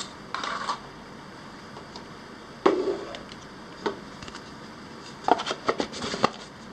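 Cardboard product boxes handled on a desk: a brief scrape, one sharp knock about two and a half seconds in as a box is put down, then a quick run of small knocks and clicks near the end.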